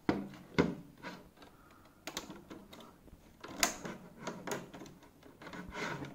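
Irregular sharp plastic clicks and knocks from handling an optical drive while its beige front plate is snapped on, the two loudest in the first second.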